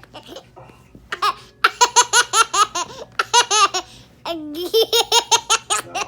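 Baby laughing hysterically in rapid, repeated bursts of short pitched notes, starting about a second in, with a brief pause before the laughing starts again.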